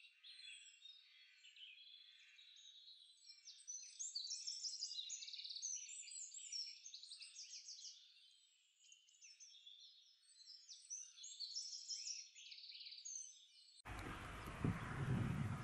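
A dense chorus of small songbirds chirping and trilling in quick, high notes, sounding thin with no low end. About fourteen seconds in it cuts abruptly to wind rumbling on the microphone.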